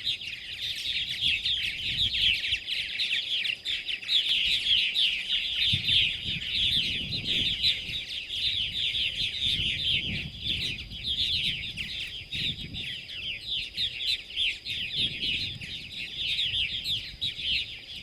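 A colony of purple martins calling together: a dense, continuous chorus of overlapping chirps and chatter, with adults and fledglings arriving at the gourd racks.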